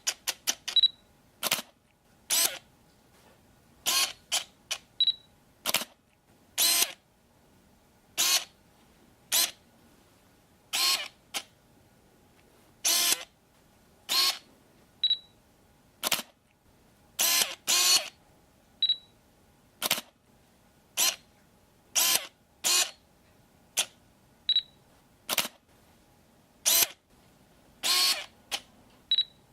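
Camera focusing and taking pictures: dozens of short shutter clicks, often in quick pairs, at an irregular pace of about one or two a second, with a brief high focus-confirmation beep every few seconds.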